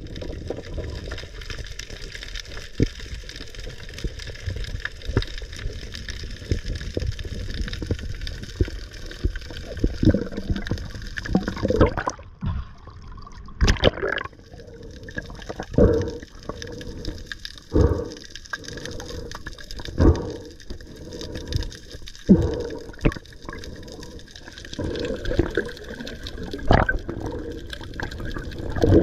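Underwater noise of water moving around an action camera's housing, muffled and gurgling, with short louder whooshes about every two seconds in the second half.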